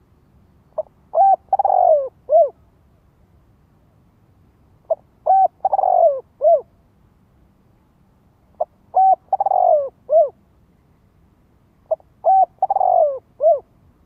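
Spotted dove cooing: four alike phrases about three and a half seconds apart, each a brief note, two short coos, a long falling coo and a last short coo. It is a caged decoy dove's call, used to draw wild spotted doves in.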